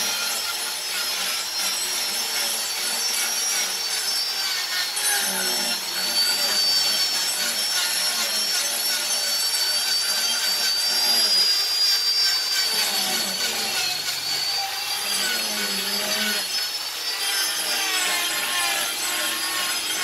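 Electric angle grinder with a carving disc cutting into wood: a continuous high motor whine that dips and rises in pitch as the disc is pressed into the wood and eased off, over a steady rasping of wood being ground away.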